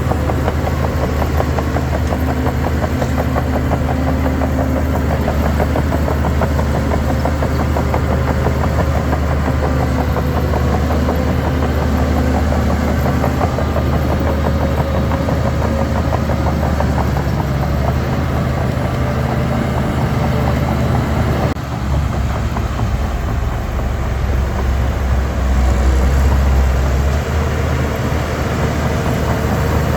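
Heavy diesel earthmoving machinery running steadily under load. About two-thirds of the way in the sound dips briefly, then a deeper rumble swells for a few seconds before settling.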